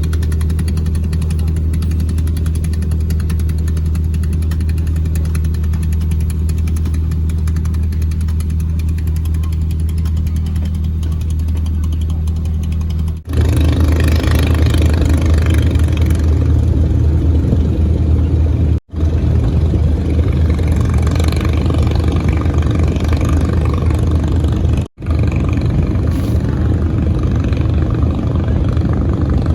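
A fishing boat's engine running steadily with a low hum. About halfway through it turns louder and rougher, and the sound cuts out abruptly twice for a moment.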